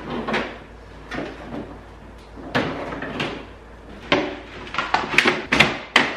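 Hard plastic clacks and knocks as a new plastic truck grill is handled and pressed into the front end, its mounting clips knocking into place. The knocks are irregular and come thicker and louder near the end.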